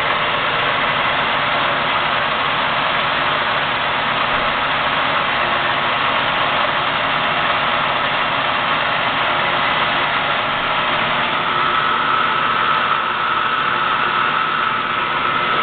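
Enco 13 x 40 bench lathe running steadily, its gear train and leadscrew driving the carriage under power in threading feed. A steady high whine joins in about two-thirds of the way through.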